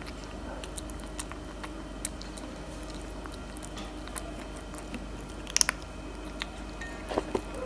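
Tabby kitten eating chicken and tuna cat food, with scattered chewing and biting clicks. The loudest cluster comes about five and a half seconds in, and a few more come near the end.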